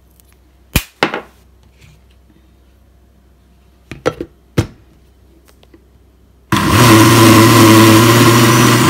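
Countertop blender with a glass jar: a few sharp knocks and clunks as the jar is handled and seated on the base, then about six and a half seconds in the motor starts abruptly and runs steadily at full speed, blending a thick banana-oat batter.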